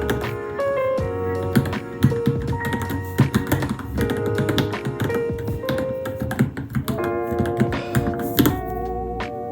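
Rapid keystrokes on a Varmilo Minilo mechanical keyboard, a dense run of clicks that thins out near the end, over background music with held, keyboard-like notes.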